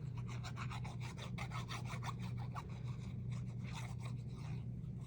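Quick back-and-forth rubbing strokes on paper, several a second: glue being rubbed onto a cardstock scrap. A steady low hum runs underneath.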